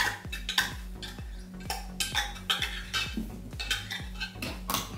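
Repeated crisp clicks and scrapes of a knife cutting iceberg lettuce into small pieces over a ceramic bowl, several strokes a second, over a low steady hum.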